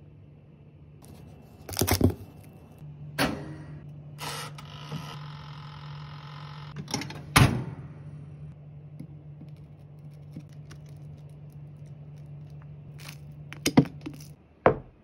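A toaster oven's mechanical timer dial is turned with a few clicks, then the oven runs with a steady low hum. Several sharp knocks and clicks come through it, the last two near the end.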